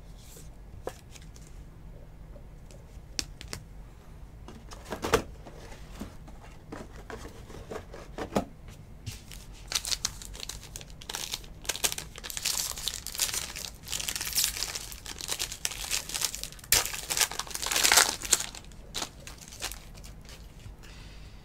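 A foil trading-card pack wrapper being pulled open and crinkled by hand. Small scattered taps and clicks of handling come first, then about ten seconds of dense crinkling, loudest near the end.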